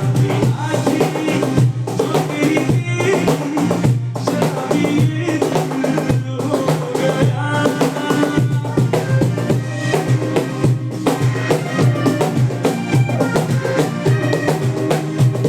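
Music with steady drum and percussion hits over a pitched backing.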